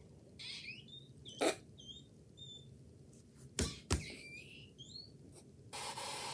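Comedy clip sound from a laptop speaker: scattered high squeaky chirps, a sharp knock, then two louder knocks in quick succession, ending in a brief burst of TV static hiss.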